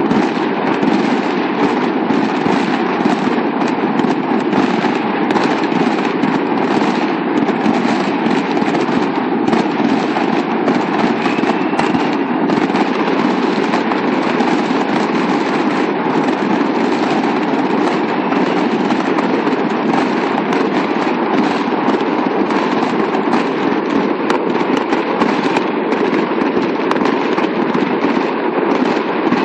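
Fireworks crackling and popping in a dense, continuous rattle, with no separate loud bang standing out.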